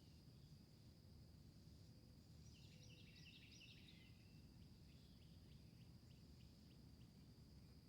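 Faint garden ambience: a steady high insect drone, with a bird's chattering call about two and a half seconds in that trails off into a run of quick notes.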